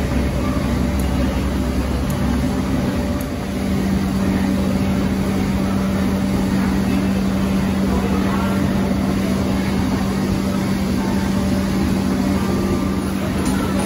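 Running machinery with a steady hum and a constant low tone, which grows stronger about three and a half seconds in.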